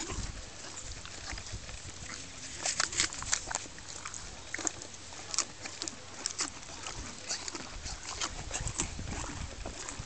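Horse's lips and muzzle working right up against the microphone, making irregular clicks and soft rustles at close range, bunched about three seconds in and scattered through the rest.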